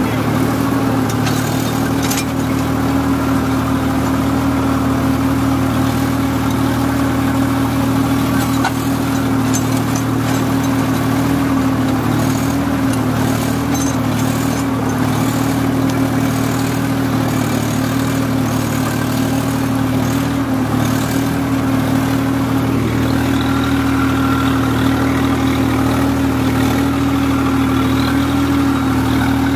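Swaraj 855 tractor's 55 hp diesel engine running steadily under load, driving a rotavator through its PTO shaft, at an even, unchanging pitch.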